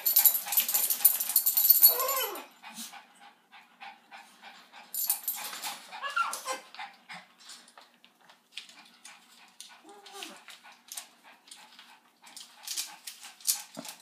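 A small dog whimpering and yipping, with short cries that fall in pitch about two seconds in and again near six seconds. Bursts of harsh, high hissing noise come at the start and around five seconds, with scattered clicks in between.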